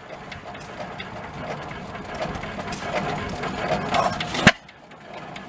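A 5 horsepower Stickney stationary gas engine running after being started, a quick, busy mechanical clatter of small clicks and knocks. A single loud sharp knock comes about four and a half seconds in.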